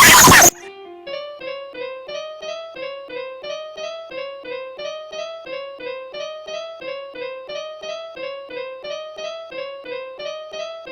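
A loud, harsh noise cuts off abruptly about half a second in. It gives way to a light electric piano tune of quick, evenly repeated notes in a looping pattern.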